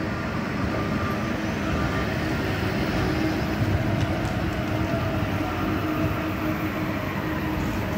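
Translohr rubber-tyred tram passing close by: a steady rumble from its rubber tyres and running gear, with a faint steady whine over it.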